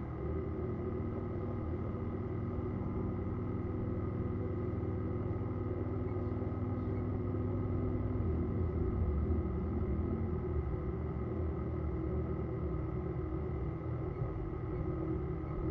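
Distant boat engine droning steadily over a low rumble. It swells slightly and wavers in pitch about eight to ten seconds in.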